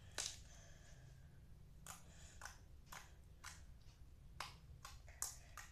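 Jiggly clear-glue slime being squished and poked by hand, giving about ten small, sharp clicks and pops at uneven intervals.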